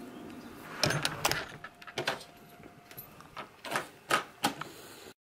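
A series of about nine irregular knocks and clicks, uneven in spacing. The sound cuts off abruptly near the end.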